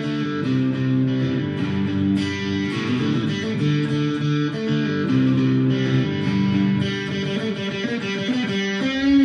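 Electric guitar playing an instrumental passage of picked chords, with no singing.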